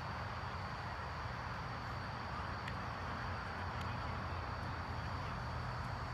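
Steady outdoor background: a constant high-pitched insect drone over a low hum, with a couple of faint ticks.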